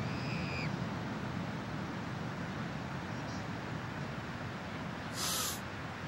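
Steady ocean surf and wind rumble, with a short high gull call in the first half-second that drops at its end, and a brief harsh squawk-like burst about five seconds in, the loudest sound.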